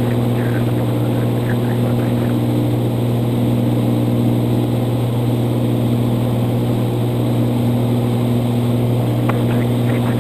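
Cirrus SR22's piston engine and propeller droning steadily in cruise, heard inside the cabin, with a deep, even hum and a few steady tones above it.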